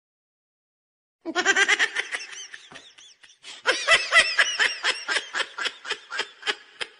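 A person laughing in two bouts, starting about a second in and again from about three and a half seconds, a quick run of ha-ha pulses that tails off near the end.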